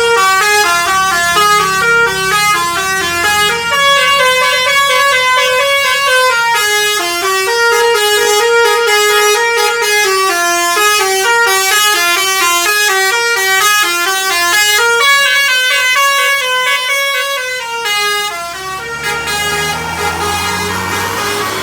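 Bus 'telolet basuri' musical horn playing a long melody, one pitched note after another, loud and unbroken until about eighteen seconds in. Then it stops and the bus engine's low rumble runs on.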